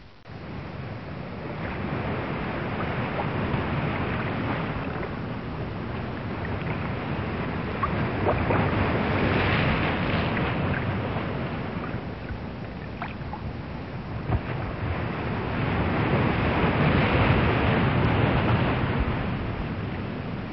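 Ocean waves washing in and drawing back, the noise swelling and fading in slow surges several seconds apart.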